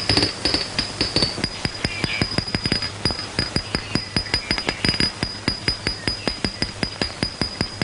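Glass bottles clinking rapidly and evenly, about five clinks a second, with a steady high ringing tone under them.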